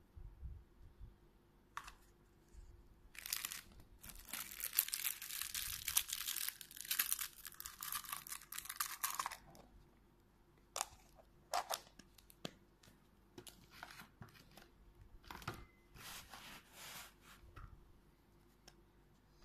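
Plastic wrapping and a sticker seal on a plastic surprise-egg capsule being torn and crinkled by hand, in a dense stretch of crackling from about three seconds in until nearly ten. After that come scattered clicks and short crinkles as the plastic egg is handled.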